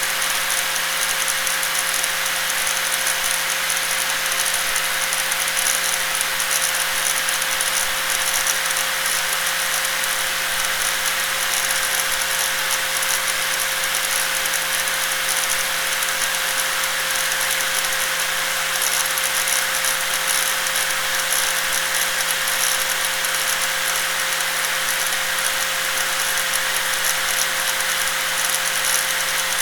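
Electric angle grinder running continuously at a steady speed: one constant pitch under a bright, rattly hiss, with no change in speed.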